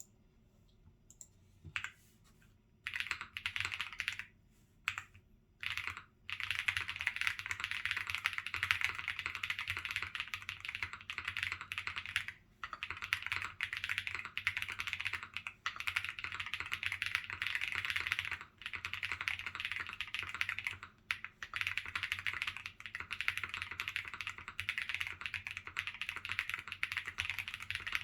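Typing on a tenkeyless custom mechanical keyboard with hand-lubed Holy Panda tactile switches, a polycarbonate plate and PBT keycaps: loud, super clacky keystrokes. A few short bursts come in the first several seconds, then fast, steady typing with brief pauses.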